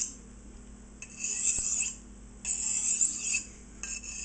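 Kitchen knife blade drawn across a hand-held sharpening stone in three long scraping strokes, each carrying a thin ringing tone; that tone is the sound a good sharpening stroke should make.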